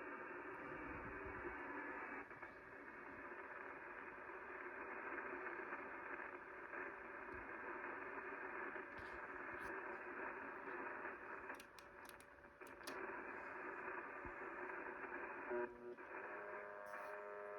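Shortwave receiver audio from a Kenwood TS-850SAT tuned to 4635 kHz: steady hiss and static in the receiver's narrow audio band. There are a few sharp clicks near the middle. Shortly before the end, several steady tones start at once.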